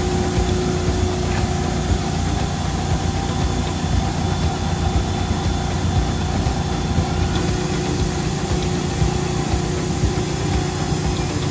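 An engine running steadily at idle, a low, even drone.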